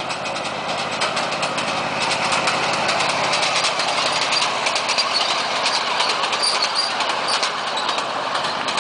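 Small engine of a ride-on miniature diesel-outline locomotive running steadily as it pulls a train of riders past. It gets louder about two seconds in as the locomotive comes close, then eases slightly near the end.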